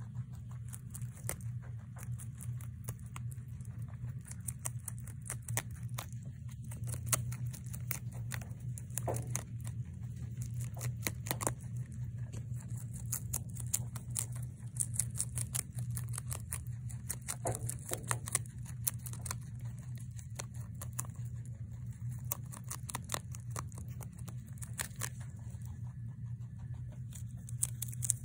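Holland lop rabbit biting and chewing a romaine lettuce leaf: rapid, irregular crisp crunches and tearing of the leaf, over a steady low hum.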